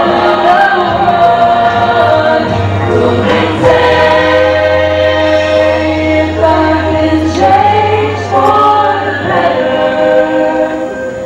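Mixed high-school choir of boys and girls singing into microphones in long held chords, with a low steady note sounding beneath the voices from about two and a half to nine seconds in.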